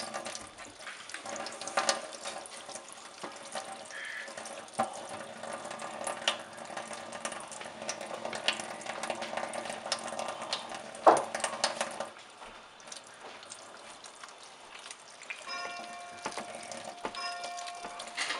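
Kitchen tap running in a steady stream into a stainless-steel sink while hands rinse and rub under it, with splashing and small knocks and one louder knock about eleven seconds in. The running water gets quieter after about twelve seconds.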